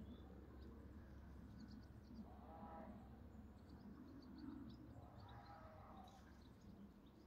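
Near silence: faint outdoor ambience with scattered faint high chirps and two faint, drawn-out calls, about two and a half and five and a half seconds in.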